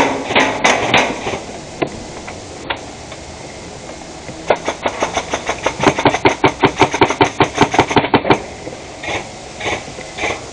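Airsoft gun firing a rapid string of shots, about seven a second, for nearly four seconds starting about halfway in. A few scattered shots come near the start.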